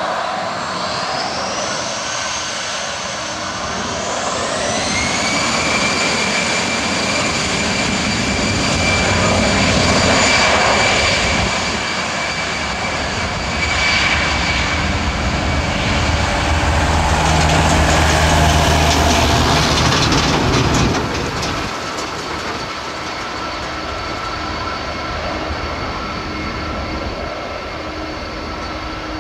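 Jet engines of an Airbus A319-111, CFM56 turbofans, whining steadily as the airliner taxis. The whine rises in pitch in two steps within the first five seconds as the engines spool up. It is loudest past the middle, with a low drone, then eases.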